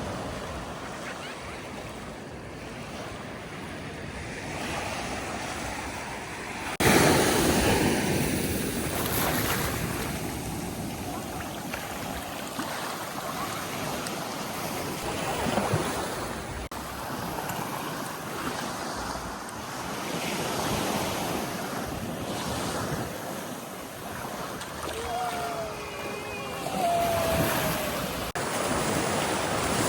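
Ocean surf rushing and breaking on the shore, with one wave crashing suddenly about seven seconds in and smaller swells after it. Wind buffets the microphone.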